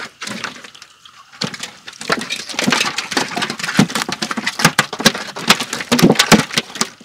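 Small basa and cá hú (pangasius catfish) thrashing and splashing as they are handled, a fast irregular patter of slaps and splashes starting about a second and a half in.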